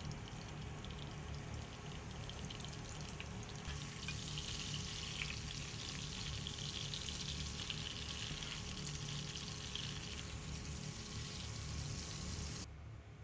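Food sizzling and crackling in a frying pan, louder from about four seconds in, cutting off abruptly near the end.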